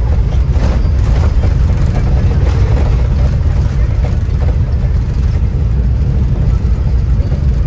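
Tour bus driving down an unpaved mountain road, heard from inside: a steady, heavy low rumble of engine and tyres on the rough surface, with some rattling.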